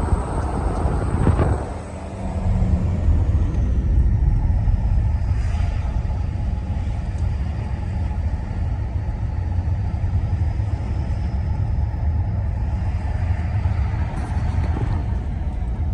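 BMW 635d's M57 twin-turbo diesel straight-six under way, its turbochargers whistling high above the low engine and road rumble, with a hair-dryer-like sound that comes through the empty DPF case after the filter delete. The whistle drops in pitch a few seconds in, then holds steady.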